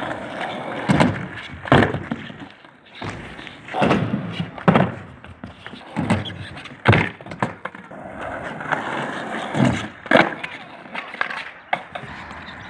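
Skateboard wheels rolling over rough asphalt, broken by about seven sharp wooden clacks of boards popping and landing during flatground tricks.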